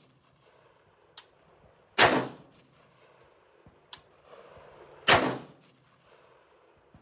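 An AR-15-pattern pistol fired held out one-handed like a handgun: two loud shots about three seconds apart, each with a short echo tail. Fainter sharp cracks fall between them.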